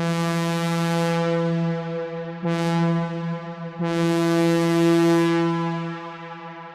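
Synthesizer imitating a Leslie A-200 locomotive air horn: one steady horn note sounded in a long blast, a short blast and another long blast run together, then dying away with an echo near the end.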